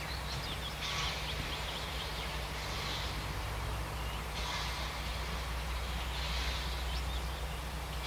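Distant narrow-gauge steam locomotive working slowly, its soft exhaust chuffs coming about every second and a half. Birds chirp over it.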